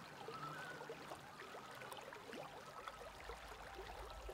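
Faint river water trickling and lapping, with many small drips and gurgles. A low rumble swells in near the end.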